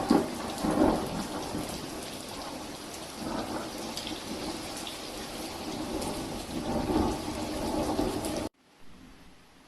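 Heavy typhoon rain pouring down, a dense steady hiss with heavier low rumbling swells, loudest about the first second. It cuts off abruptly near the end.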